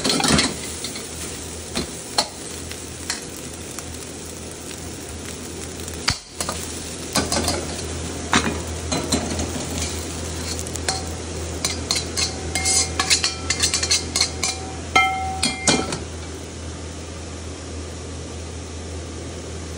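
Fried rice sizzling in a wok while a metal ladle stirs and scrapes it, with sharp scrapes and clinks of metal on metal. Between about 11 and 16 seconds in, the ladle scrapes the rice out with ringing metal clinks. After that the frying stops and only a steady low hum is left.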